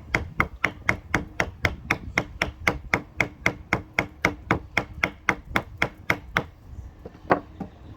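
Hammer striking a 2x4 wood block in quick, even taps, about four a second, to drive a part onto the engine; the tapping stops a little after six seconds and one more hard blow follows about a second later.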